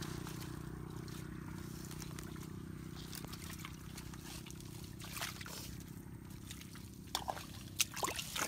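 Hands digging into wet mangrove mud at a crab burrow: squelching and sloshing of mud and water, with sharper wet smacks in the last couple of seconds. A steady low rumble runs underneath.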